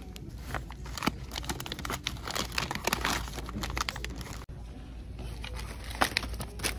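Packaging crinkling and rustling, a dense run of small crackles and clicks over a low steady hum.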